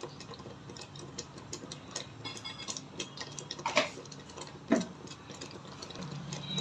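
Onion, tomato and chilli masala paste frying in oil in a pot, popping and spattering in scattered small ticks, with two louder clicks near the middle. The oil is separating from the paste as it cooks down.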